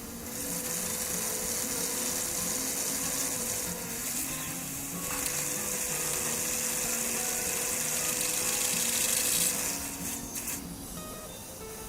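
Steady watery hiss from surgical irrigation and suction, over quiet background music; the hiss drops away about nine and a half seconds in.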